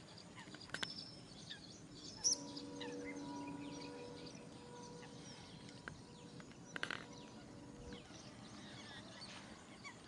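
Coots and small birds calling at a lake edge: many short faint chirps throughout, with a few sharp, loud calls about one, two and seven seconds in, the one near two seconds the loudest. A faint steady hum sits underneath for much of it.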